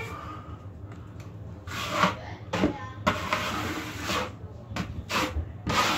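Drywall taping knife scraping over wet joint compound on a wall, in a run of short rough strokes starting about two seconds in.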